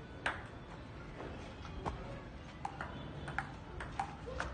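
Table tennis ball being served and rallied, a sharp click each time it strikes a paddle or the table, roughly one every two-thirds of a second.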